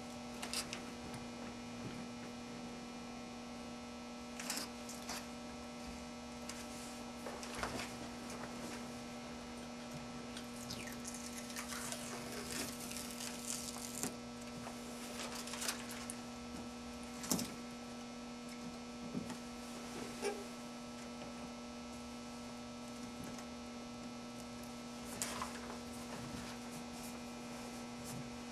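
Steady electrical hum, with scattered faint crackles and rustles of adhesive application tape being peeled off a stencil by hand, a few slightly louder strokes past the middle.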